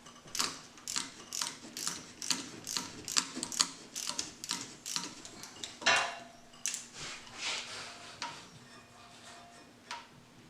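Hand ratchet clicking at about two to three clicks a second as a broken-loose cylinder head bolt is backed out of a 3.8 L V6. A louder clunk comes about six seconds in, then lighter, slower clicking.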